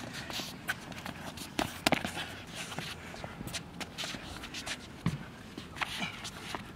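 Boxers' sneakers shuffling and stepping on a hard outdoor court, with scattered sharp knocks, the loudest about two seconds in and another about five seconds in.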